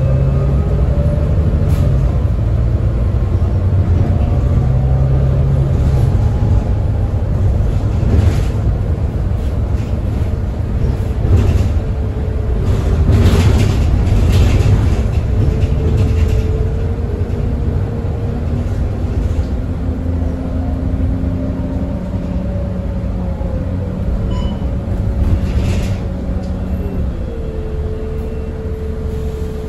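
Volvo B9TL double-decker bus with its 9.4-litre Volvo D9B six-cylinder diesel and ZF EcoLife six-speed automatic gearbox, running under way. The engine note steps up and down several times, with a few brief hissing noises around the middle.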